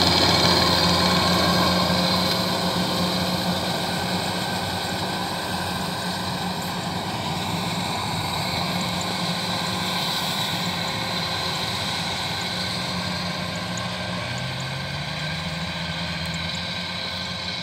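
Kubota DC-93 combine harvester running with a steady mechanical drone of its diesel engine and threshing machinery, growing fainter as the machine moves away. The engine note rises briefly about two-thirds of the way through.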